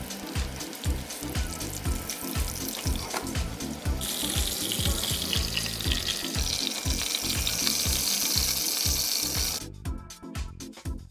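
Breaded pork schnitzel frying in hot oil: a loud sizzle from about four seconds in, cutting off suddenly near the end. Background music with a steady beat plays throughout.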